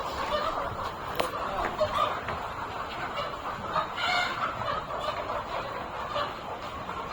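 A flock of chickens clucking continuously, many calls overlapping, with one louder call about four seconds in.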